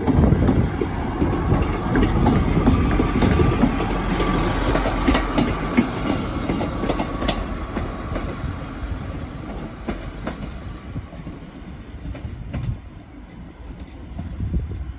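Class 150 Sprinter diesel multiple unit passing and pulling away, its underfloor diesel engines running under power and its wheels clicking over rail joints and points. The sound fades over the last few seconds as the train draws off into the distance.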